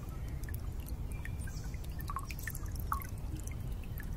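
Water dripping and trickling, scattered small plinks over a steady low rumble.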